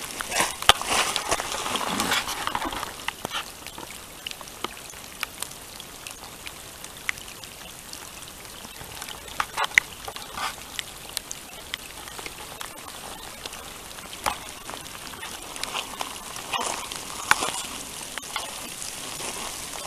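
Steady rain falling: a fine hiss with scattered sharp ticks of individual drops. A louder, rougher noise runs through the first three seconds or so.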